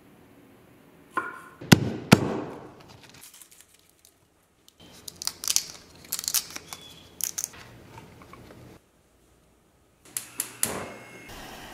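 A few loud, sharp cracks, then a run of crisp tearing and crinkling as fresh kaffir lime leaves are torn apart by hand, then more sharp cracks near the end.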